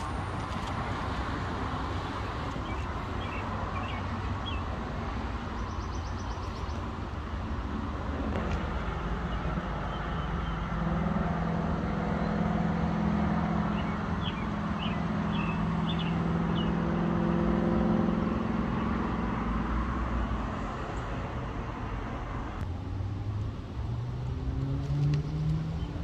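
Steady rumble of motor vehicles, with one heavy engine's running tone growing louder from about ten seconds in and fading out at about twenty seconds. Near the end another engine comes up, rising in pitch.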